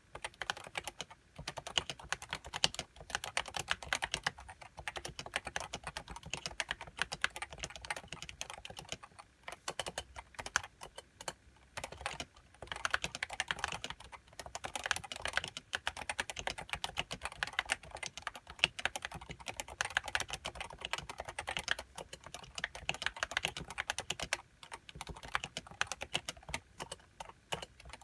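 Fast continuous typing on a Leopold FC660C keyboard with Topre 55 g electrocapacitive switches and HiPro keycaps: a dense stream of rapid key clicks with a few short pauses.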